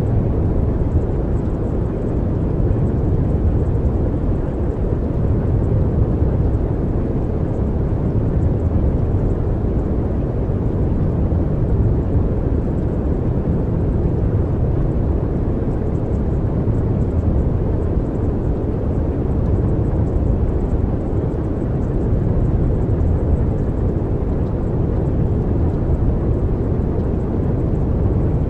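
Steady, deep rumbling noise that rises and falls gently every few seconds, a soothing background noise bed.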